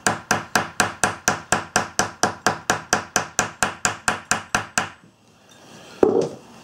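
A hammer tapping down a freshly sewn line of saddle stitches in leather to flatten and set the thread. It gives about twenty quick, even taps, roughly four a second, which stop just before five seconds in; a single duller thump follows about a second later.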